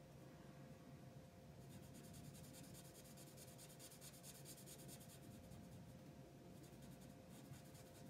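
Faint scratching of a marker tip on paper, in quick back-and-forth colouring strokes.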